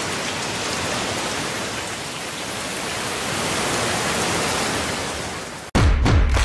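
A steady, even rushing noise. Near the end it cuts off, and loud dhol drum beats struck with sticks begin, several heavy strokes in quick succession.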